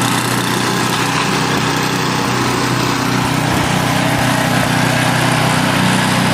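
Small engine running steadily at a constant speed, with a dense mechanical hiss over it.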